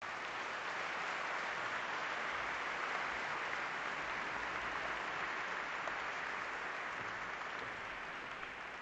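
Audience applauding steadily, dying away gradually near the end.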